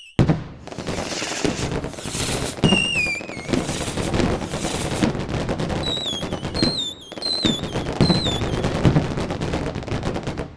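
Fireworks going off: a dense run of bangs and crackling, with several short whistles that fall in pitch from whistling rockets.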